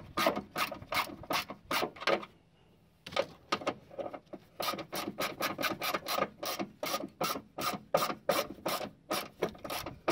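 Hand socket ratchet on an extension clicking rapidly and steadily, about four clicks a second, as it backs out a ground-wire bolt. The clicking stops briefly about two seconds in.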